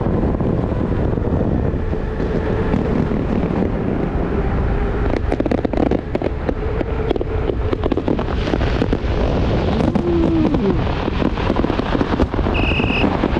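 Fireworks popping and crackling in quick, irregular succession from about five seconds in, over a steady low rumble of wind on the microphone. A short high beep sounds near the end.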